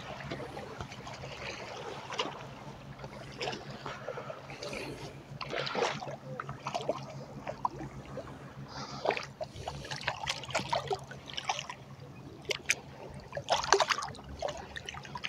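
Irregular splashing and sloshing of shallow water as a person wades out and lands a hooked carp by hand. The loudest splashes come near the end, as the fish is scooped out of the water.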